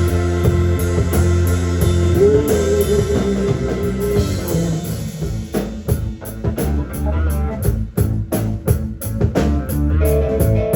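Psychedelic blues-rock band playing live without vocals: electric guitar and held, wavering lead notes over bass and drum kit, with the drum beats standing out more in the second half.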